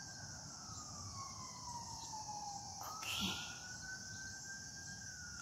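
Faint emergency-vehicle siren in a slow wail, its pitch gliding up and down and jumping back up about three seconds in, over a steady high-pitched hiss.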